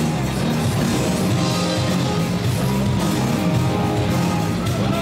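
Rock music with guitar playing steadily.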